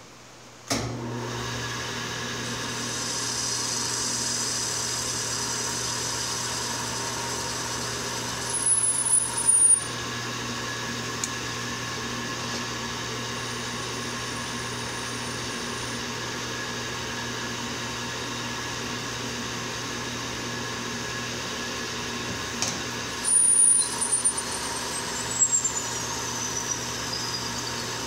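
Rivett 918S turret lathe starting up about a second in and running steadily with a machine hum. It gets louder and rougher twice, about 9 and 24 seconds in, each time with a high squeal, and the second squeal slides down in pitch.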